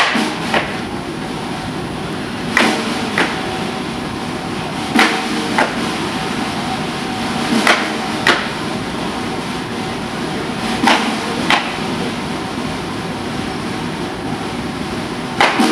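Wooden cigar boxes clacking against each other in a cigar-box juggling routine: pairs of sharp clacks about half a second apart, repeated every two to three seconds over a steady background hum.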